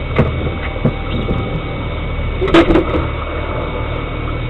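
A boat motor running with a steady low drone, with a few short knocks and one brief louder sound about two and a half seconds in.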